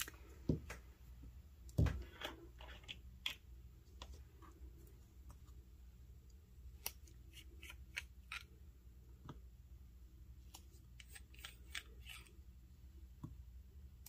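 Faint handling noises at a desk: a glass ink bottle set down with a couple of dull thuds, then scattered light clicks and taps as an acrylic fountain pen's cap and barrel are unscrewed and the pen taken apart for filling.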